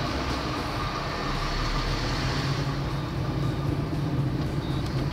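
Fiat Grand Siena's engine running steadily with tyre and road noise, heard from inside the cabin.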